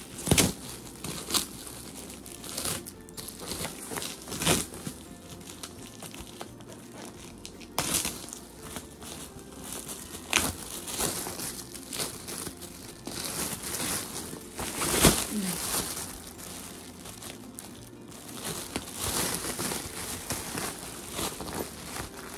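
Gift packaging being crinkled and torn open by hand: irregular crackles and rustles, with the sharpest crackles just after the start and about fifteen seconds in.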